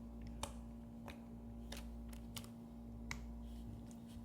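Blue slime being pressed and squeezed, giving off sharp irregular clicks and pops, about seven in a few seconds.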